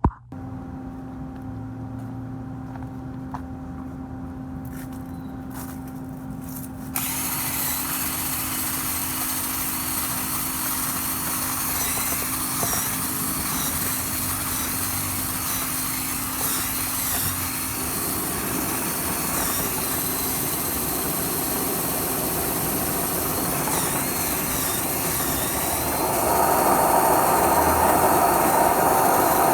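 A power tool running steadily, getting louder about seven seconds in and again near the end.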